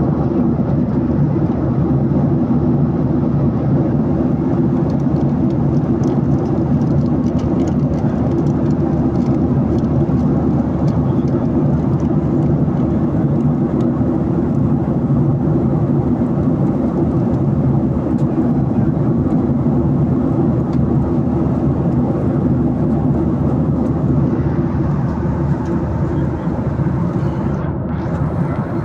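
Airliner cabin noise in flight: the steady, loud low drone of the jet engines and the air rushing past the fuselage, heard from a window seat.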